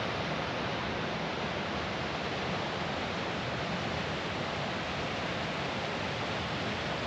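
Steady, even rush of a waterfall, with no other sound standing out.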